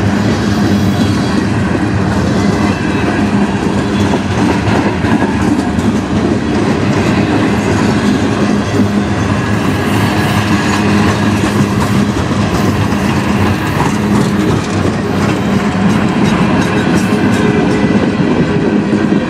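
Freight cars of a mixed manifest train rolling past close by: a loud, steady running noise of steel wheels on the rails.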